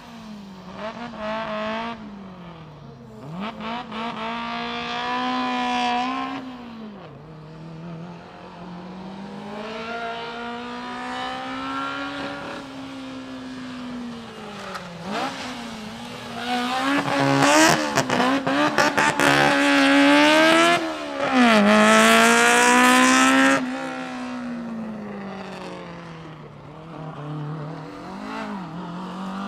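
Honda S600's small high-revving twin-cam four-cylinder engine pulled hard and eased off again and again through a gymkhana course, its pitch sweeping up and down. It is loudest about two-thirds through, choppy for a moment as the car comes close.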